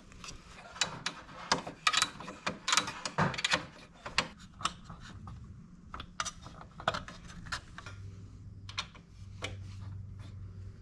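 Irregular sharp clicks and clacks of hand tools and plastic fairing panels being worked back onto a motorcycle, loudest and most frequent in the first few seconds. A low steady hum comes in about eight seconds in.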